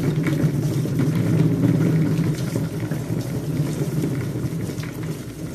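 Cat exercise wheel turning as a cat runs in it: a steady low rumble from the wheel rolling.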